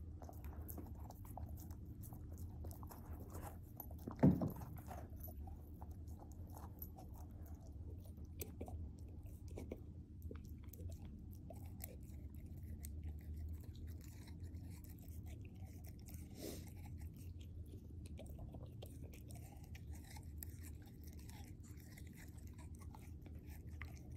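A Great Pyrenees puppy chewing and crunching a slice of pear, with many small crunches and wet bites throughout over a low steady hum. One louder thump about four seconds in.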